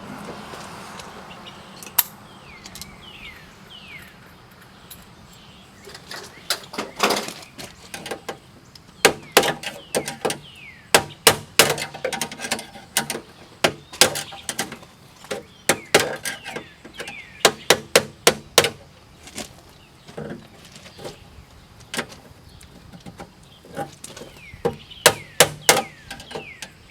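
Hammer driving a chisel: a run of sharp, irregular blows that starts about six seconds in, often in quick groups of two or three with short pauses between.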